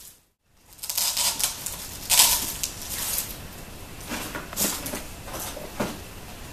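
A moment of silence near the start, then irregular crinkly rustling and light clicks of artificial floral greenery and glittery gold stems being handled and pushed into a floral arrangement, loudest about two seconds in.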